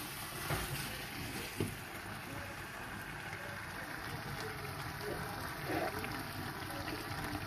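Steady hiss of pots cooking on a stovetop, with a few light clicks of a spoon and a fork against the steel pots.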